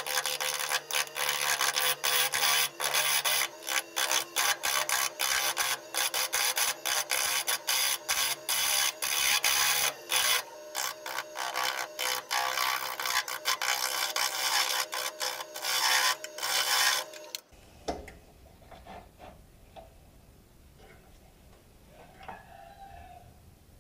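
Jet 1221 VS wood lathe spinning a spalted bowl blank while a turning tool cuts it: a rough scraping, broken by rapid gaps, over the lathe's steady hum. The scraping and the hum stop abruptly about 17 seconds in, leaving a faint low rumble.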